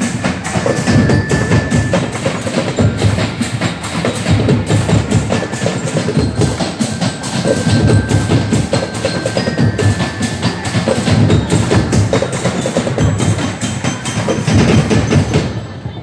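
Percussion music with a fast, steady beat of sharp, wood-block-like strikes over low drums.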